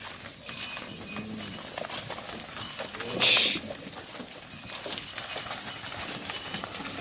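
Herd of cattle walking, their hooves clopping on the ground, with a short loud hissing burst about three seconds in.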